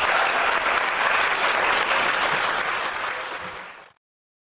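Audience applauding: a dense, even clatter of many hands clapping that thins out toward the end and cuts off suddenly about four seconds in.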